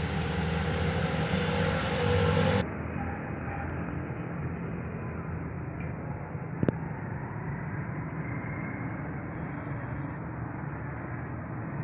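Steady car noise with a low hum, dropping abruptly about two and a half seconds in, and a single sharp click near the middle.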